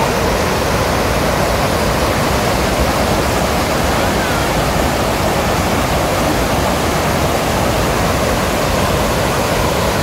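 Stream water rushing through and over a line of concrete stepping stones, churning into white water below them: a steady, even rush.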